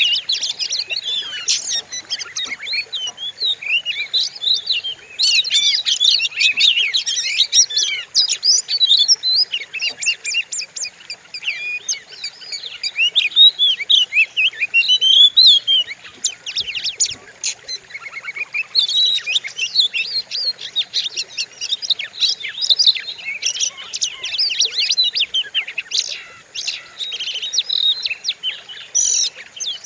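Magpie-robin (kacer) singing a fierce-sounding, continuous stream of rapid, varied whistles and chattering notes: the kind of song played as 'pancingan' to provoke another kacer into singing.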